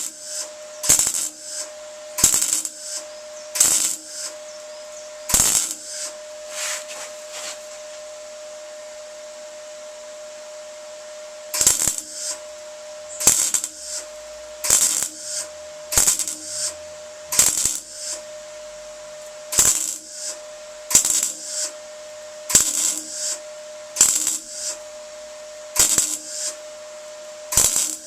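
Welder laying a series of short tack welds on van body-panel steel, one brief crackling burst roughly every second and a half, with a pause of a few seconds partway through. A steady hum runs underneath.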